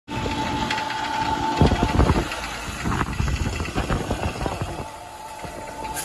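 Outdoor unit of a 2006 Ruud Value heat pump running: a steady hum of its condenser fan and compressor, with a steady tone over the first couple of seconds. A few dull thumps come between about one and a half and two seconds in.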